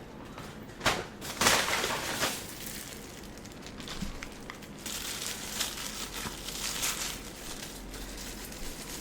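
Packaging crinkling and rustling as a fork is taken out, with sharper rustles about one and two seconds in and softer rustling after.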